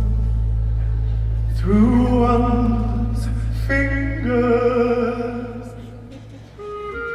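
Music: a deep sustained drone under a sung melodic line that slides up in pitch about two seconds in. Near the end the drone fades and a new, lighter melody begins.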